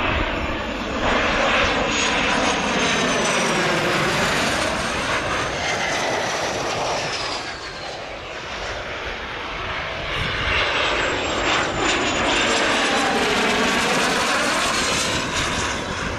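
Dassault/Dornier Alpha Jet's twin Larzac turbofans running on a landing approach: a steady jet rush with a high whine that falls in pitch as the aircraft goes by. The sound swells twice, easing off about halfway through.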